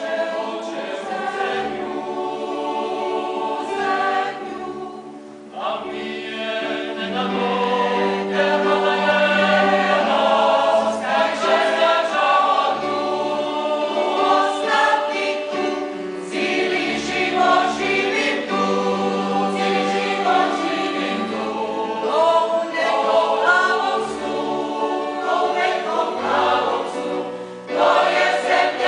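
Mixed choir singing in harmony, many voices holding sustained chords. The sound falls away briefly between phrases about five seconds in and again just before the end.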